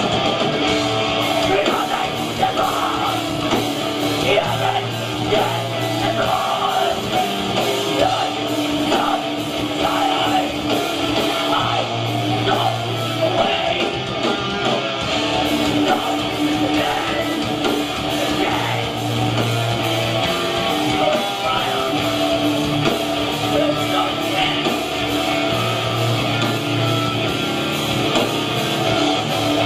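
Live metalcore band playing: distorted electric guitars, bass and drums, with yelled vocals. A heavy riff comes round again every few seconds over steady drumming.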